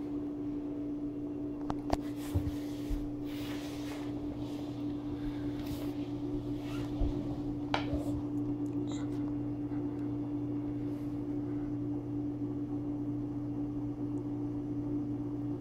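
A steady low hum runs throughout. Over it come soft rustles of a fleece blanket, mostly in the first half, as a cat sniffs and steps onto it and settles down.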